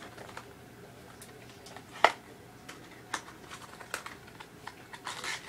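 Hands handling and opening cardboard knife packaging: scattered light clicks and taps, one sharp louder click about two seconds in, and a brief rustle near the end.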